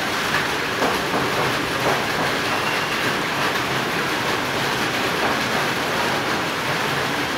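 Light rain falling on the surrounding roofs: a steady hiss with a few faint taps of drops.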